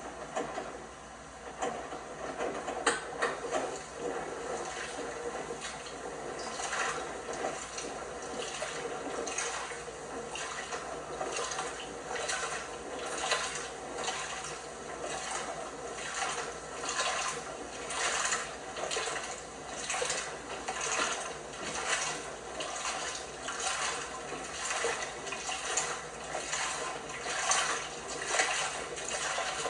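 LG washing machine washing a load, water sloshing in the drum in surges about once a second.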